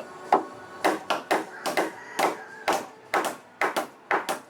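Machetes hacking at bamboo: about three sharp knocks a second, each with a short ring, as the bamboo is split and shredded apart into flattened slabs.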